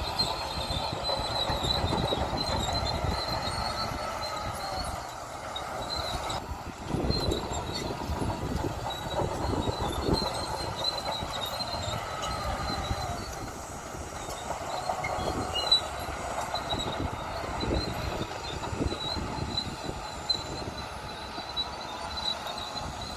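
Bulldozer working: the engine rumbles steadily while its steel tracks squeal and clank, with a wavering high squeal.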